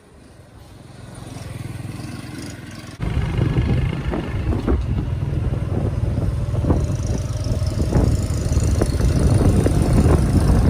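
Restored Honda Super Cub motorcycle's small single-cylinder four-stroke engine running. It fades up over the first couple of seconds, then becomes abruptly louder about three seconds in and keeps up a steady rumble.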